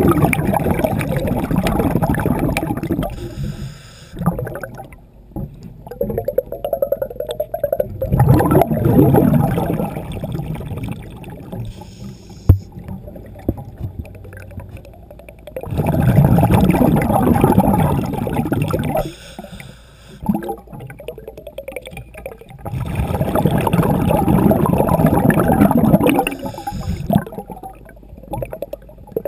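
Underwater sound of a scuba diver's regulator: long rushing gurgles of exhaled bubbles, each lasting about three seconds and coming roughly every seven seconds, with quieter stretches between breaths.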